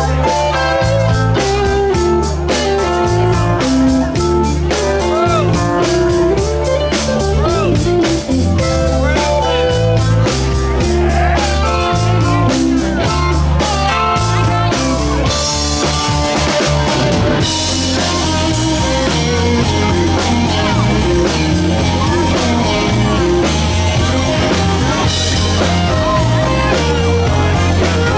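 Live rock band playing: electric guitar, bass and drum kit with a steady beat.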